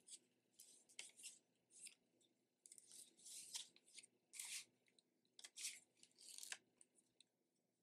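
Faint rustling of paper as the pages of a handmade paper journal are turned and pressed flat by hand, a handful of soft rustles.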